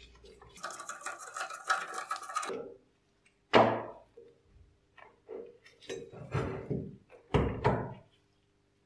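Screwdriver turning a rusted fastener on an old blowtorch's burner, a rapid grating run of clicks, then a sharp metal knock and several clinks as the burner parts are worked loose and pulled apart.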